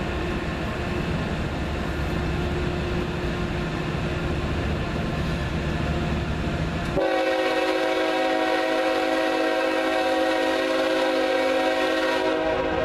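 Air horn of a CSX GE ES44AH diesel locomotive sounding one long, steady blast for a grade crossing, starting suddenly about halfway through and holding for about five seconds. Before it, a low steady rumble from the approaching train.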